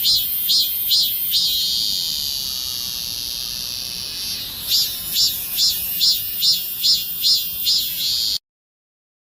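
Cicada singing: a rhythmic run of pulsed high calls, about two a second, that swells into a long steady drone for about three seconds, then returns to the pulsed calls. The sound cuts off suddenly near the end.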